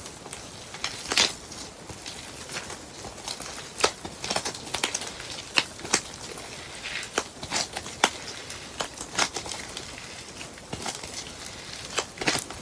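Slime being squeezed and poked by hand, giving irregular sharp crackling pops and clicks, several a second at times.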